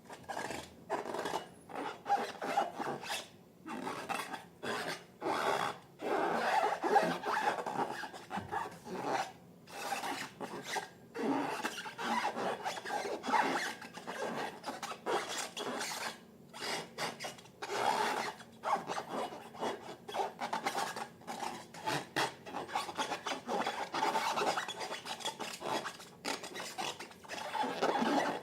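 Slime being mixed by hand in a container: a long run of irregular rubbing and scraping strokes, several a second.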